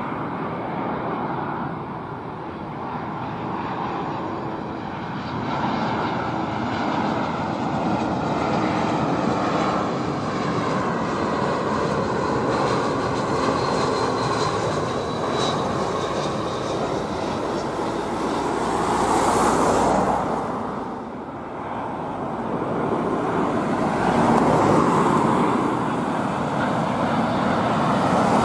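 Turbofan engines of airliners on final approach: an Airbus A320-200 growing louder to a peak as it passes close. After a sudden dip about three-quarters of the way in, a Boeing 787-9's engines take over and grow loud again near the end.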